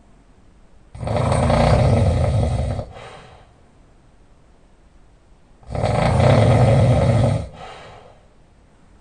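Loud open-mouth snoring from a person lying on their back: two long snores about five seconds apart, each trailing off into a shorter, quieter breath.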